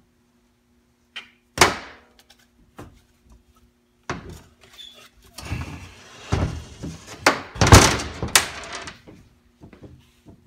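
Heavy metal clunks and knocks from a 4L80E automatic transmission and its parts being handled on a workbench. One sharp thunk comes early, then a longer run of clunking and scraping, with the loudest knocks late on.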